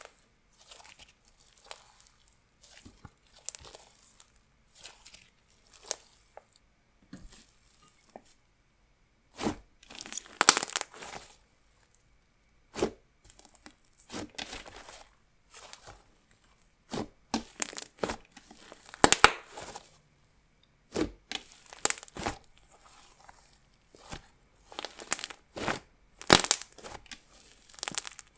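Dense clay butter slime with jelly slime mixed in, stretched apart, pressed and squeezed by hand. It gives a run of short, irregular sticky tearing and squishing sounds with quiet gaps between, and a few louder clusters spread through.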